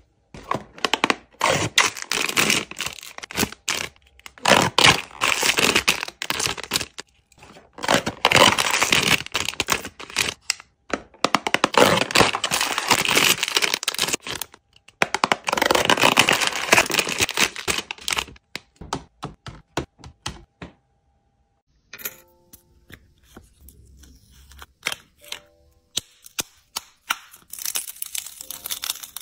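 Hands tearing open and crinkling a foil blind-box bag, with dense bursts of tearing and rustling for most of the first two-thirds. After a brief silence, clear plastic screen-protector film is flexed and peeled, with sparse clicks and then crackling near the end.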